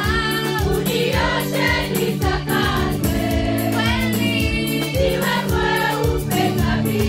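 A girls' high-school choir singing a Swahili gospel song over a steady beat and sustained low accompaniment.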